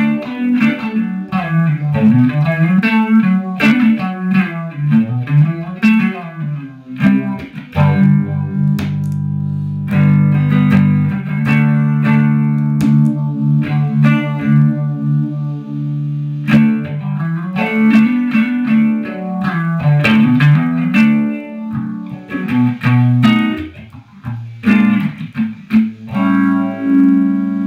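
Electric guitar (Fender Stratocaster) played through an MXR Phase 90 phaser pedal into a mid-60s blackface Fender Bassman amp with a 2x12 cabinet, the effect switched on. Quick picked note runs alternate with long held chords, another chord ringing near the end.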